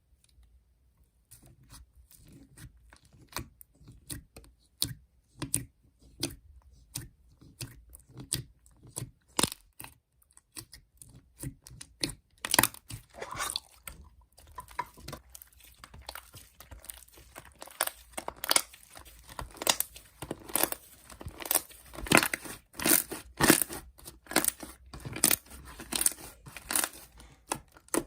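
Close, crisp crunching and tearing sounds: many short sharp crackles, sparse at first and denser and louder from about twelve seconds in.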